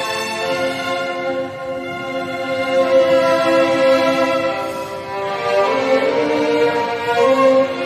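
Ensemble of violins playing together in long held chords, the harmony shifting a little past halfway through and again near the end.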